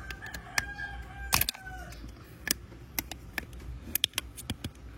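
Small plastic building-brick pieces clicking and snapping as they are pressed together, in a string of sharp clicks. A rooster crows in the background over the first second and a half.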